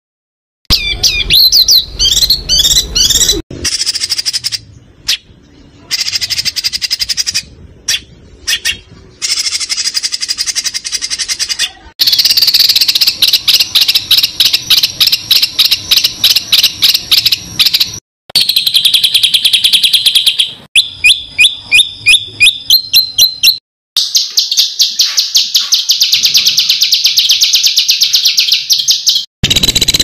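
Recorded songbird song for bird-training (masteran): bursts of chattering calls and long fast runs of rapidly repeated high notes. The recordings are spliced together with abrupt cuts between them.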